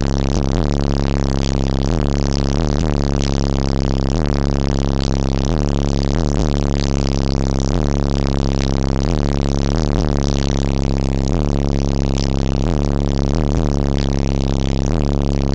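Two 15-inch AA Chaos subwoofers playing a loud, steady deep bass tone inside the car cabin, with buzzing and rattling on top from the overloaded microphone and vibrating interior.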